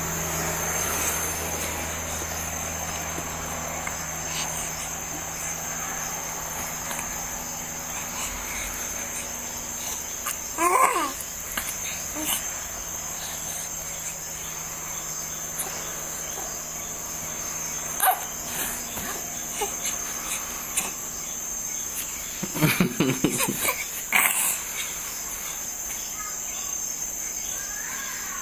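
A baby babbling and cooing: one short wavering sound about eleven seconds in, then a longer run of babbling noises near the end, over a steady high-pitched chirring in the background.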